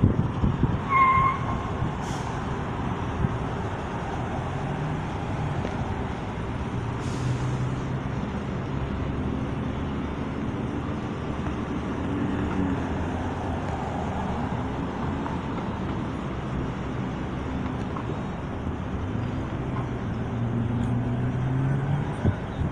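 Street traffic: the steady engine and road noise of vehicles passing and idling, with a short high tone about a second in and brief hisses at about two and seven seconds.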